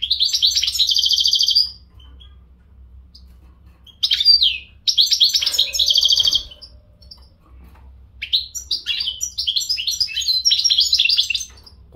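Caged European goldfinch singing: three bursts of fast, high twittering song with rapid trilled runs. The last burst is the longest, at about three seconds.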